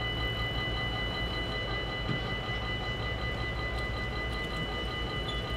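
Dutch level-crossing warning bell ringing continuously while the barriers are down, a steady high bell tone over a low rumble.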